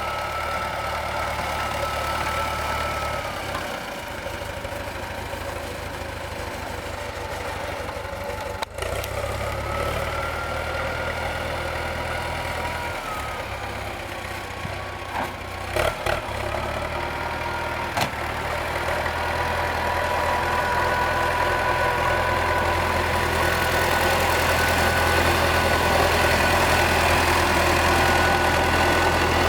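T-40AM tractor's air-cooled four-cylinder D-144 diesel running, its speed shifting up and down a few times and growing louder in the last third. A few short sharp clanks come through, one just before halfway and a close pair and a single one a little after.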